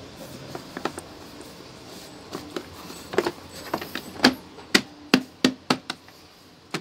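A hand slapping and pressing a rubber floor mat down onto a Honda Click 125 scooter's plastic floorboard: about a dozen quick, sharp taps starting a couple of seconds in, with one more near the end.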